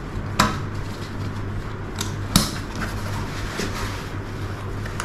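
Motorcycle saddlebag being closed up by hand: a few sharp clicks of its fastenings, the loudest about two and a half seconds in, with handling rustle between.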